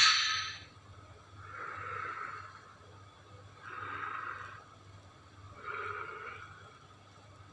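Godzilla creature sound effect: a loud cry fades out at the very start, then three short, hoarse sounds about a second long follow, roughly two seconds apart.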